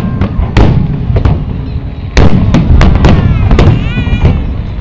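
Aerial fireworks shells bursting in rapid succession: a quick series of sharp booms over a continuous low rumble, the loudest burst about two seconds in.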